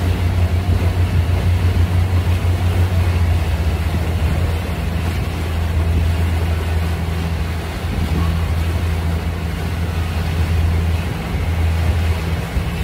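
A small passenger boat's engine running steadily underway, a low drone that throbs quickly for the first few seconds, over a rushing hiss of water and wind.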